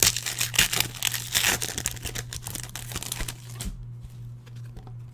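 Foil wrapper of a trading-card pack crinkling and tearing for about three and a half seconds, then lighter clicks of cards being handled. A steady low hum runs underneath.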